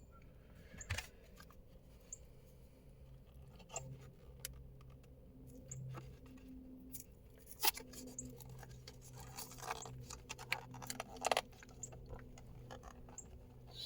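Light, scattered clicks and taps of small metal parts and hand tools being handled, a few every second or two, over a faint steady low hum.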